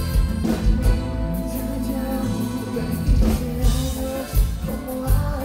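Live band music played loud on stage: drums, bass and keyboards with a male singer. Latin dance rhythm with regular drum hits.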